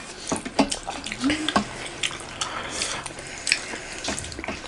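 Wet, squelchy eating sounds: fingers mixing maida dhindo into runny fish curry on metal plates and food being eaten by hand, with many short scattered clicks.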